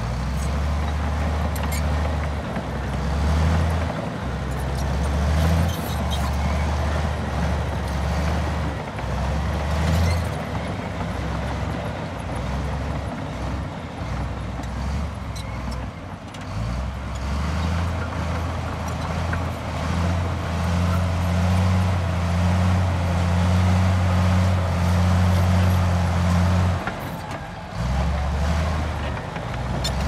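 Komatsu D65P-11 crawler bulldozer's diesel engine working under load while pushing fill, a steady low drone that swells and eases with the load and dips briefly a few seconds before the end. Beneath it is a rough, rattling noise with scattered knocks from the steel tracks and blade working over rocky ground.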